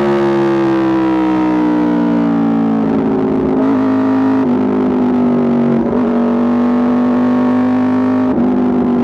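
Aprilia RSV4 RR V4 engine running through an Austin Racing exhaust. Its pitch eases down slowly at first, then holds fairly steady, with brief breaks or steps in pitch about 3, 4½, 6 and 8½ seconds in.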